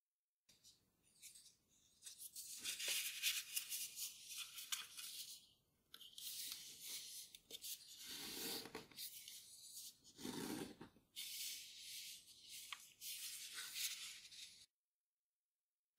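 Sheet of grainy-textured origami paper rustling and crackling under the fingers as it is folded and its creases are pressed flat, in uneven spells with short pauses. The sound cuts off suddenly near the end.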